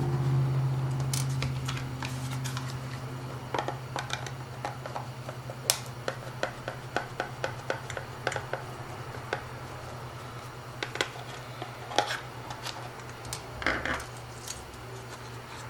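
Irregular small clicks and ticks of a screwdriver and plastic parts as the screws holding a Porsche 986 climate control panel's housing together are taken out, over a steady low hum that fades during the first few seconds.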